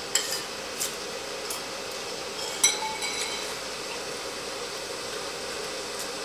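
Eating utensils clinking against bowls and dishes a few times, the clearest a short ringing clink about two and a half seconds in, over a steady faint hum.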